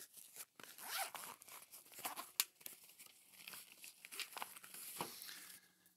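Handling of a soft fabric accessory case as charging cables and papers are pulled out of it: irregular rustling and crinkling with scattered small clicks and taps.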